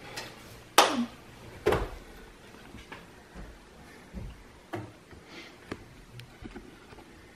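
A few sharp knocks and taps in a small room: two louder ones about one and two seconds in, then fainter taps spaced a second or so apart.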